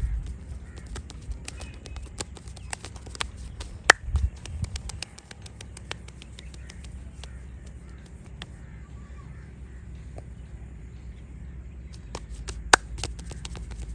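Hand massage of the head and back: a run of small taps and clicks from hands working on skin, with two loud, sharp cracks, one about four seconds in and one near the end.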